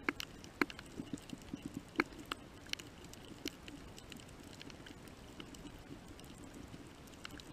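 Underwater reef sound: scattered sharp clicks and crackles over a steady low hiss, the clicks coming thickest in the first few seconds and thinning out after.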